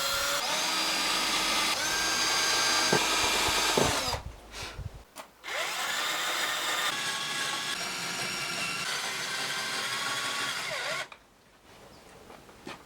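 Power drill driving wood screws into wood: the motor runs steadily for about four seconds, stops briefly, then spins up again and runs for about five more seconds before stopping.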